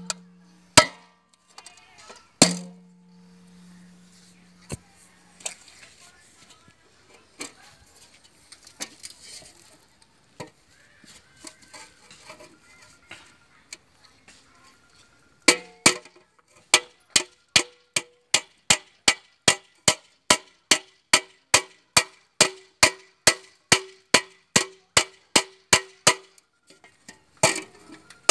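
Hammer blows on an aluminium cooking pot (dekchi). A couple of loud strikes near the start ring on for about three seconds, then there are scattered quieter knocks. From about halfway comes steady hammering, about two blows a second, each with a short metallic ring, as an aluminium patch sheet is nailed over the leaking bottom with the pot upturned on a metal stake.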